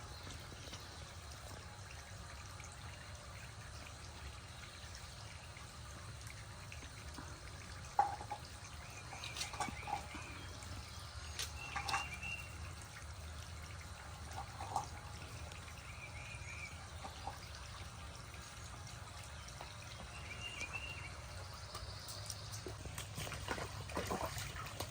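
Faint trickling water, with a few brief high chirps and small clicks.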